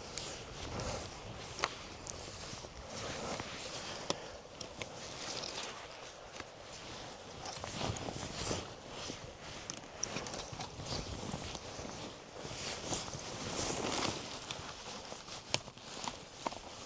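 Irregular footsteps and rustling through grass, with a few sharp clicks scattered through.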